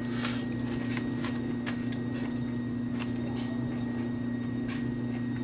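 A steady low electrical hum from a running appliance or motor, with a few faint clicks and chewing sounds as someone eats from a plate with a fork.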